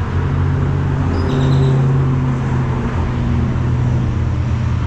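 Road traffic: a steady low engine drone, which rises a little in pitch and swells slightly about a second in.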